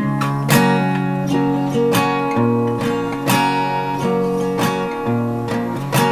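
Background music: an acoustic guitar strumming steady chords in an even rhythm.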